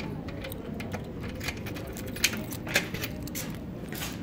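A bunch of keys jangling and clicking, with two sharper metallic clicks about half a second apart a little past halfway.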